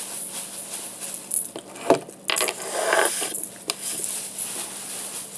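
Close-up chewing and crunching of hard, powdery starch chunks from an arrowroot mix: irregular crisp crackles, with a longer crunch about two and a half seconds in.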